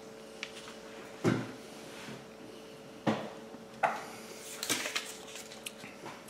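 Handling noise: several sharp knocks and clatters, four of them louder, about 1.3, 3.1, 3.8 and 4.7 seconds in, over a faint steady hum.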